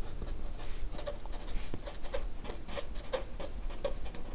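A marker pen writing on paper: a quick, irregular run of short strokes as words are written out by hand.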